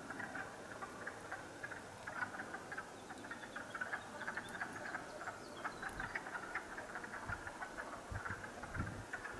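A chorus of frogs calling, a dense, steady crackle of many quick croaks. A few soft footsteps thud in the second half.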